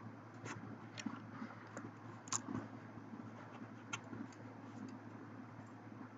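Faint, irregular small clicks and taps, about five or six, the loudest about two seconds in, over a steady low electrical hum.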